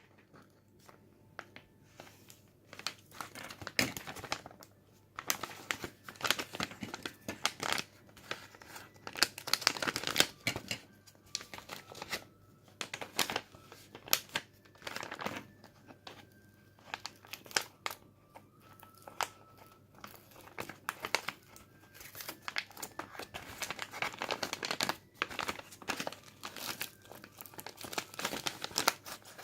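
Package wrapping crinkling and rustling as it is handled, with bouts of tearing as it is opened, in irregular bursts throughout.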